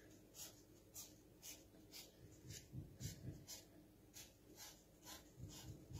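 Faint scratches of a felt-tip marker pen drawing short strokes on folded kitchen towel, about two a second, with a few soft low bumps about halfway through and near the end.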